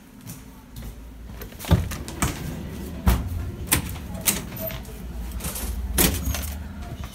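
Metal clanks and knocks of an ЭТ2М electric train's carriage end doors and gangway as someone walks through between two cars, about six sharp strikes over a low rumble that grows louder in the middle and fades near the end.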